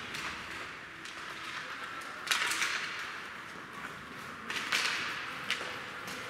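Ice hockey play: skate blades scraping across the ice, with sharp clacks of sticks and puck about two seconds in and again around five seconds in.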